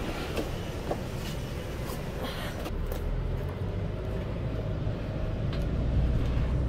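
Cabin noise of a moving shuttle van: a steady low road-and-engine rumble that grows slightly louder about halfway through, with a couple of light clicks near the start.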